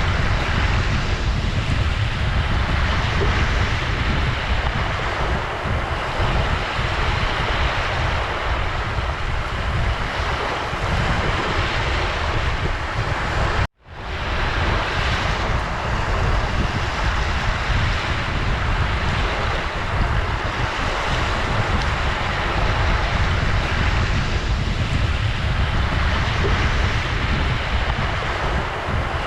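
Ocean surf washing continuously on the shore, with heavy wind rumble on the microphone. The sound cuts out completely for an instant about halfway through and fades back in.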